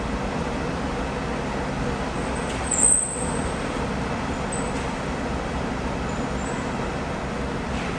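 A heavy diesel machine's engine running steadily, with a brief high-pitched squeal about three seconds in.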